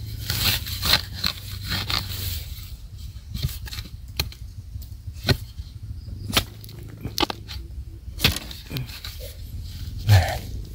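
A hand digging blade scraping and striking loose soil and dry bamboo leaves while a bamboo shoot is dug out. The scrapes and knocks come irregularly, about one a second, and the loudest knock falls near the end.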